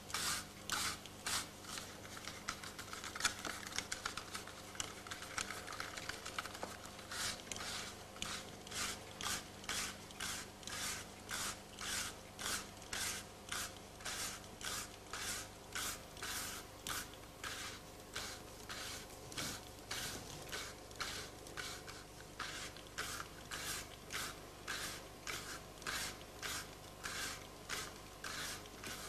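Hand percussion played with even scraping or shaking strokes, about one and a half a second, over a faint steady drone.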